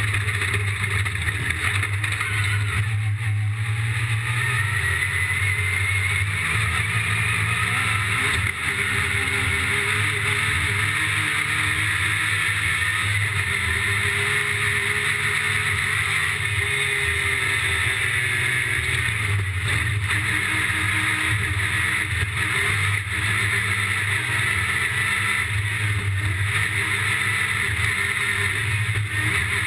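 Yamaha YXZ 1000R side-by-side's three-cylinder engine running hard at race pace, its pitch rising and falling as the throttle and gears change.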